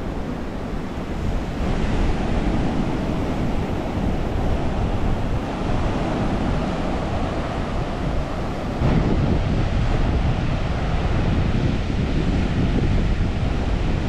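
Wind buffeting the microphone over a steady wash of sea surf, with no voices; the noise steps up a little about two seconds in and again about nine seconds in.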